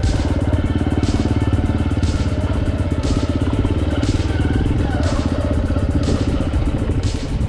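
Hero Impulse motorcycle's single-cylinder four-stroke engine running steadily under load, with background music with a beat about once a second over it.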